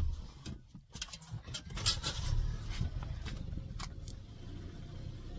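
A few clicks and knocks of handling around a car, the loudest about two seconds in, then a low steady rumble.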